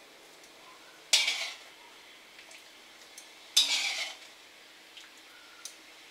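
Metal tongs clattering and scraping against a wok twice, about a second in and again midway, as spaghetti is lifted out into a plastic colander, with a few light ticks between.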